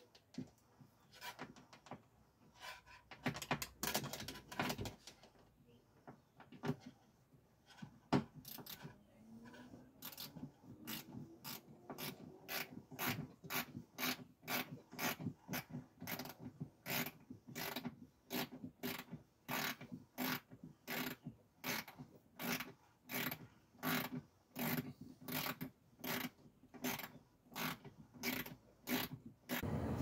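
Ratchet wrench turning out the door handle's screws, clicking in a steady back-and-forth rhythm of close to two strokes a second that starts about ten seconds in, after some scattered clicks and rubbing from handling the tools and panel.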